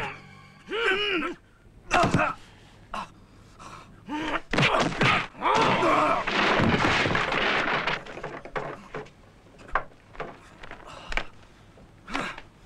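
Kung-fu film fight sound effects: a series of sharp punch and kick hits and heavy thuds, with the fighters' grunts and pained yells between the blows.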